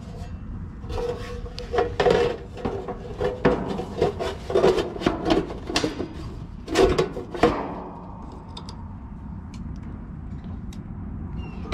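Sheet-metal service panel of an outdoor AC condenser scraping and clanking against the cabinet as it is slid and pushed into place by hand, a run of rubs and knocks that dies down after several seconds to a few light ticks.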